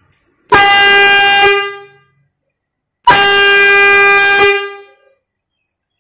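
Kobra single-pipe, single-tone air pressure horn with a plastic trumpet bell, blown from a compressed-air tank through a 12-volt air valve: two quite loud blasts of one steady note, the first about a second long and the second about a second and a half, each fading out quickly as the valve closes.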